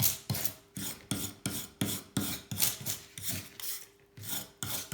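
Hand file rasping back and forth on the cut end of an aluminium seat post, about three strokes a second, with a short pause about four seconds in. The file is clogged with aluminium and is not biting well into the material.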